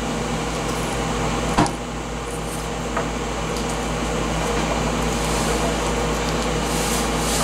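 Steady low mechanical hum of running kitchen equipment, with a single light click about a second and a half in.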